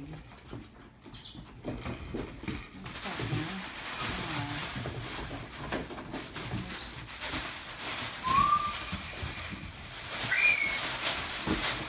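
Cavapoo puppies at play: scuffling and rustling with short low grunting sounds, and two short high squeaks or whines in the last third.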